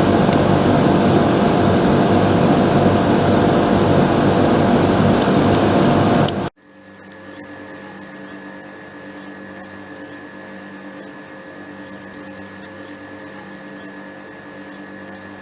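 Mitsubishi Mr.Slim PUH-J140GA9 fixed-speed heat pump air conditioner running in heating mode, a loud steady fan-and-compressor noise with a low hum. About six and a half seconds in it cuts off abruptly, and a much quieter steady hum with several steady tones follows.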